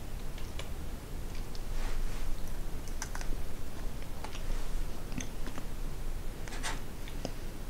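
Mouth chewing soft, sugar-coated sour fruit gum, with irregular wet clicks and smacks.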